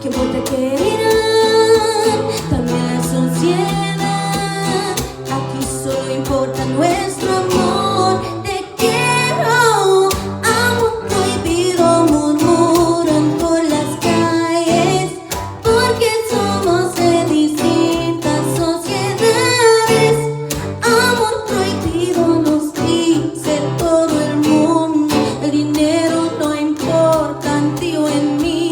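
A woman singing in Spanish over a strummed guitar, a live acoustic duo performance of a song.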